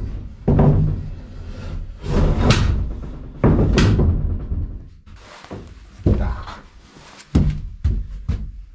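Wooden 2x3 framing board knocking and thudding against the plywood walls and floor of a small, boxy wooden shack as it is handled and set in place: several separate knocks with a short booming ring from the hollow plywood room.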